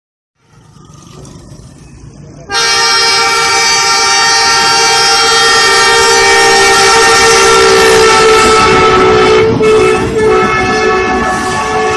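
Diesel locomotive horn sounding a danger whistle: a long, loud, continuous multi-tone blast that starts suddenly about two and a half seconds in and is held to the end, a little broken near the end. Faint rumble of the approaching train comes first, and the passing train runs beneath the horn.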